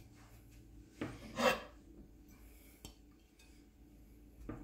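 Light kitchen handling noises: a click and a short scrape about a second in, then a few faint knocks.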